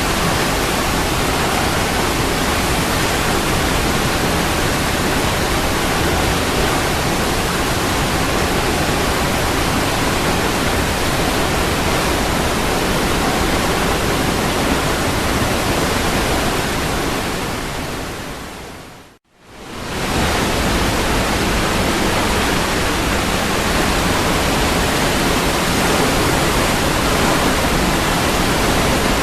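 Waterfall rushing, a steady, even roar of falling water. About two-thirds of the way through it fades out to silence for a moment and then fades straight back in.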